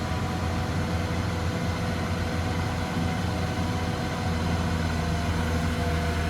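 Heavy diesel engine of an excavator running steadily: a low hum that stays even, with faint steady tones above it.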